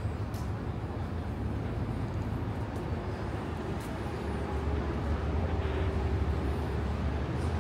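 City street traffic: a steady, low vehicle-engine rumble over general street noise, with a faint steady whine coming in about four seconds in.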